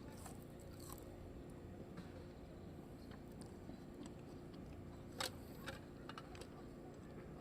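Someone eating close to the microphone: quiet chewing with a few short crunchy clicks, the sharpest about five seconds in and a small cluster just after, over a steady low background rumble.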